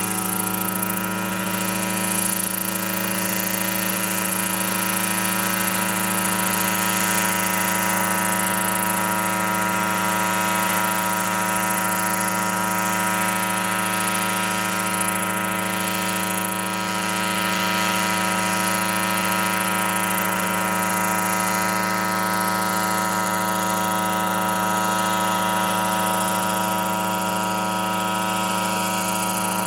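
Yamaha RMAX unmanned helicopter's two-stroke twin-cylinder engine and rotors running steadily in flight, a constant even drone that barely changes in pitch.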